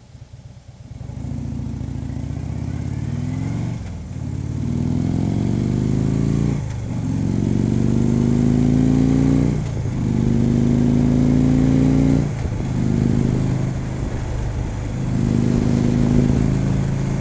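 Motorcycle engine pulling away about a second in and accelerating, its pitch climbing in each gear and dropping at five upshifts a few seconds apart.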